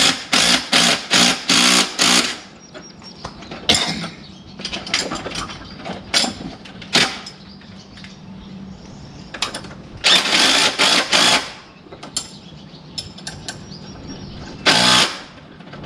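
Power tool, likely an impact wrench, run in short trigger bursts while bolting mud-flap chains onto a dump truck. There is a quick series of about six bursts at the start, a longer burst about ten seconds in, and one more near the end.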